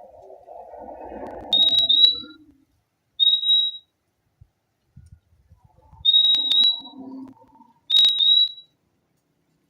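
Purple-throated euphonia (fim-fim) calling: short, clear, high whistled notes, mostly in pairs, four times. A fainter, lower, rustling sound lies under the first and third calls.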